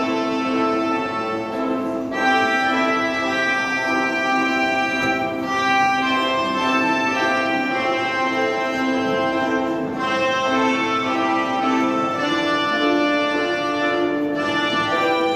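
Electronic keyboards playing in an organ-like voice: a slow melody of long held notes over sustained chords.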